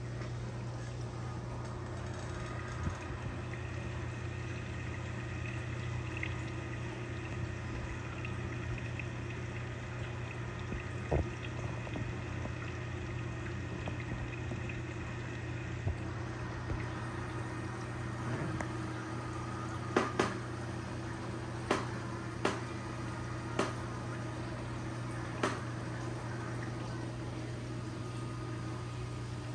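Reef aquarium's water circulation: a steady low pump hum under a constant wash of moving water. A few sharp clicks come in the second half, several in quick succession.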